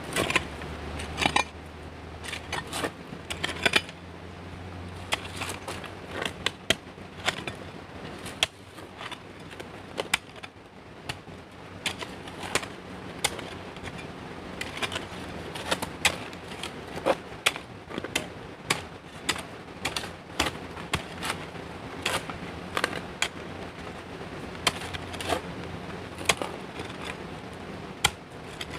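A long run of irregular sharp taps and clicks of hard objects knocking together, with a low steady hum under them for stretches.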